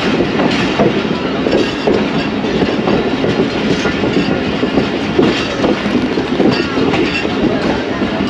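Passenger train coach running along the track: a steady rumble and rattle with frequent irregular knocks from the wheels on the rails.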